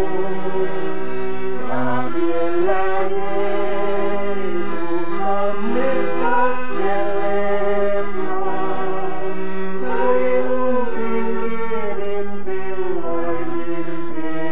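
Two accordions playing a tune together in held, changing chords.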